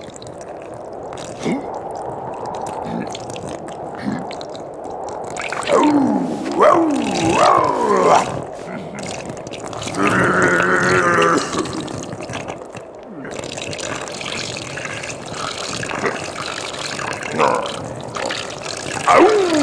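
A cartoon yeti peeing: a steady trickling, splashing stream of liquid. Wordless vocal sounds ride over it, with sliding up-and-down whoops a few seconds in and a long held voiced sound near the middle.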